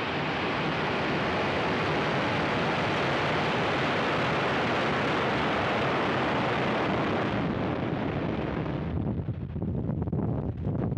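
Falcon 9's nine Merlin 1D first-stage engines at full thrust on liftoff: a loud, dense, steady rumble. After about eight seconds it loses its upper range and turns uneven and fluttering.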